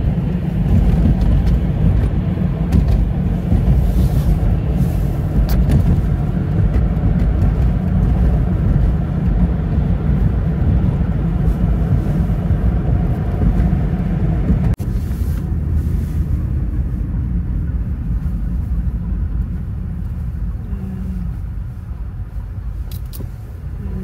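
Steady low rumble of road and engine noise inside a moving car, easing off and getting quieter over the last few seconds.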